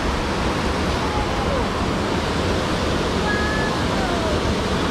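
Steady rush of river water running over rocks, a constant even hiss.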